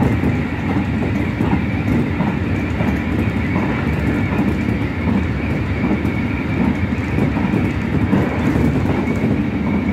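Diesel railcar running steadily at speed, heard from inside the cab: an even rumble of engine and wheels on the rails, with faint irregular clicks from the track.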